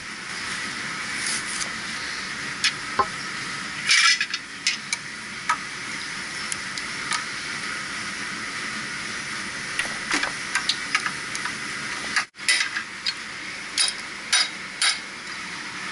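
Steady hiss of a hand-held gas torch flame, with scattered metallic clinks of tools against the compressor's fittings and a louder clatter about four seconds in.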